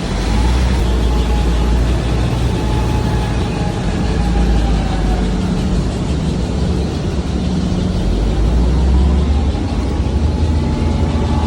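Heavy industrial machinery running steadily: a deep, continuous low rumble with a dense noisy wash above it and a faint wavering whine.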